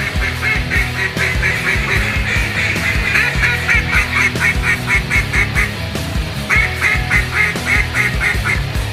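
Rock music with a steady drum beat, overlaid by fast runs of duck quacks: one run at the start, a short break just before six seconds, then another run.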